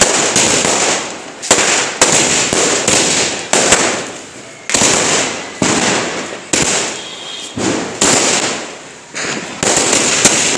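A 100-shot aerial firework cake firing shot after shot: sharp loud bangs roughly every half second to a second, each trailing off before the next.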